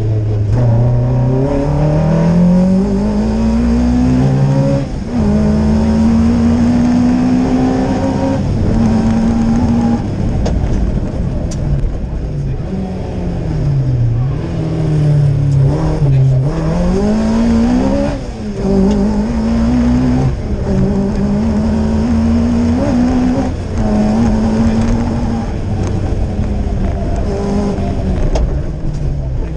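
Rally car's engine heard from inside the cabin, driven hard: the pitch climbs through the gears with brief breaks at each upshift, and several times falls away and picks up again as the car slows for corners and accelerates out.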